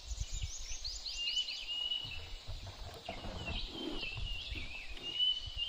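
Wild birds calling in dry forest: a quick run of downward-sweeping notes in the first second and a half, then several drawn-out whistled notes, over a low rumble.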